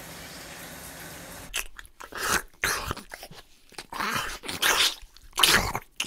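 Steady hiss of a running shower, then about a second and a half in, loud crunching and chewing eating sounds in irregular bursts, dubbed in as sound effects.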